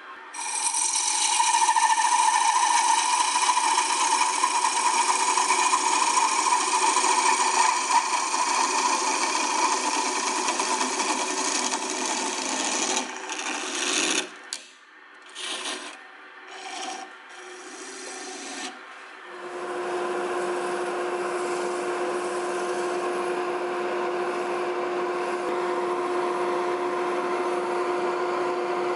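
A hand-held turning chisel cutting a wooden spinning top as it turns on a wood lathe: a continuous scraping hiss of shavings coming off for about 14 seconds, then several short separate cuts. From about 20 seconds in, a steadier, quieter rubbing over a steady hum as an abrasive pad sands the spinning top.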